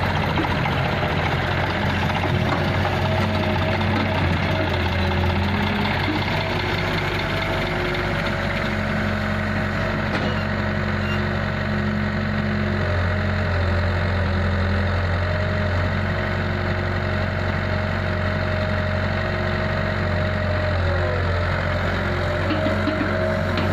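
Diesel engines of an Eicher tractor and a Kato HD250 hydraulic excavator running steadily, with a low hum. A steady higher tone rides over it and dips briefly near the end.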